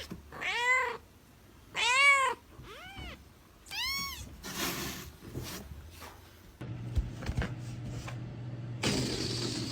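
A cat meowing four times about a second apart, each call rising then falling in pitch, the first two the loudest. Later a steady low hum with a hiss comes in.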